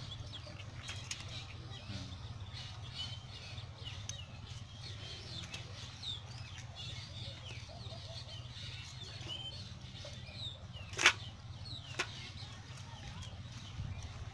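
Live snakeheads flapping and slapping against a metal pot and the grass as they are handled, with a sharp slap about eleven seconds in and a lighter one a second later. Small birds chirp in the background over a low steady hum.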